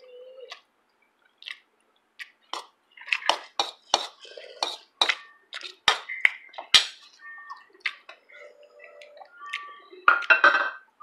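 Spoons clinking and scraping against ceramic bowls during a meal: a run of sharp clinks through the middle and a dense flurry of them near the end.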